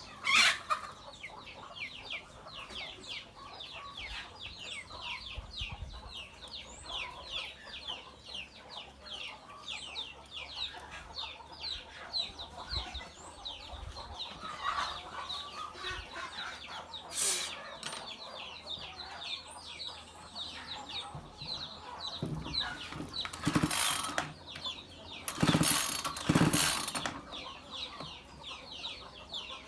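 Birds chirping rapidly and without pause, many short high falling chirps a second. Twice, about halfway and again about three-quarters of the way through, there are brief loud knocks and clattering.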